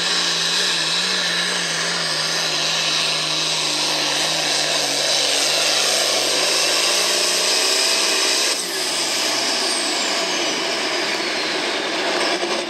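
Hot farm class Case IH pulling tractor's diesel engine running hard under load as it drags a weight-transfer sled, its pitch sagging slowly as the pull goes on. A little past halfway the throttle is cut at the end of the run: the engine note drops sharply and a high whistle falls away over the following seconds.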